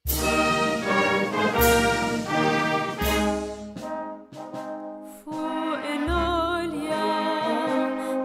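Wind band playing a hymn introduction: three loud full chords with heavy low brass about a second and a half apart, then a softer passage. About six seconds in, a woman's solo singing voice with wide vibrato comes in over the band.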